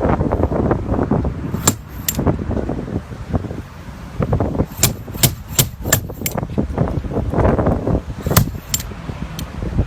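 Irregular sharp knocks and taps from tools at work on a car, a dozen or so spread unevenly over a steady low rumble.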